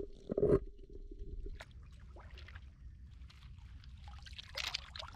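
Seawater sloshing and splashing, with a low rumble and scattered clicks and knocks of turban snail shells; a dull thump about half a second in is the loudest sound, and a burst of splashing comes near the end.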